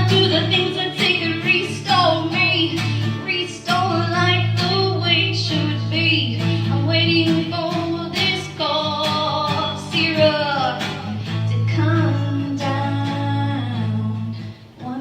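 Live song performance: a woman singing long held vocal lines over a guitar, with the music dropping away briefly near the end.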